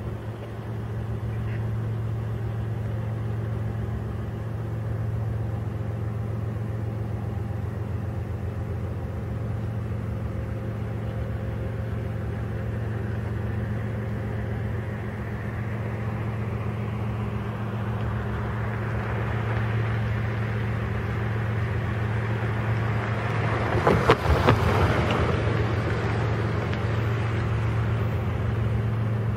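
Diesel-electric freight locomotive running at low speed, its steady engine hum joined by the growing rumble of the train rolling closer over the rails. About 24 seconds in comes a short cluster of sharp clanks and knocks, the loudest part.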